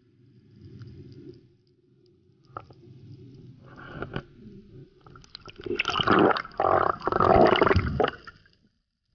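Water moving and gurgling around an underwater camera housing: a low rumble with a couple of sharp clicks at first, then about three seconds of much louder gurgling and rushing in the second half that fades out before the end.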